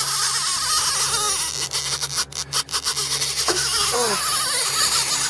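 Conventional fishing reel's drag paying out line with a steady high buzz and bursts of rapid clicks as a hooked fish runs, stripping line until the angler is nearly out of it. A low steady engine hum lies underneath, with a few short voices.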